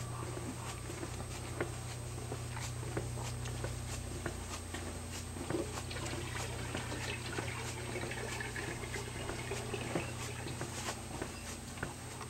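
Footsteps on a wooden yacht deck, a string of light, fairly even taps, over a steady low hum.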